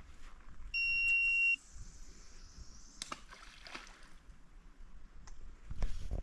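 A single steady electronic beep, under a second long, about a second in. It is followed by a faint swish and click around the middle and a low thump near the end.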